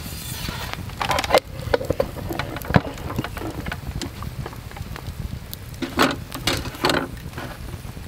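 Wood campfire crackling under a metal grill, with scattered sharp pops, the strongest about three seconds in, over a steady low rumble. A few louder rustling bursts come about a second in and again around six and seven seconds.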